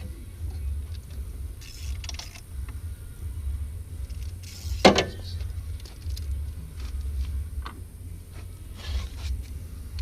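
Hand tools and metal parts clicking and scraping during car disassembly, over a steady low rumble, with one sharp clank about five seconds in.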